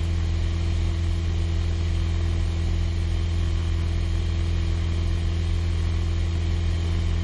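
Steady drone of a Piper PA28-161 Warrior's four-cylinder Lycoming O-320 engine and propeller in flight, heard from inside the cabin: a constant low hum with no change in pitch or power.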